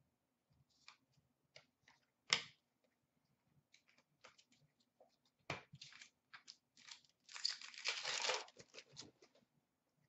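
Wrapper of a 2008-09 Upper Deck Series 1 hockey card pack being handled and torn open, with the cards shuffled. Scattered small crinkles and clicks, one sharp snap about two seconds in, and a longer rip of the wrapper from about seven to eight and a half seconds in.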